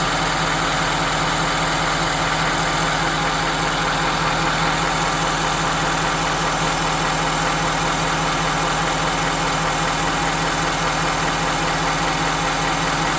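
2017 Ford F-250's 6.7L Power Stroke V8 turbodiesel idling steadily, warmed up. The engine knock the owner is investigating is not as obvious once the engine is warm.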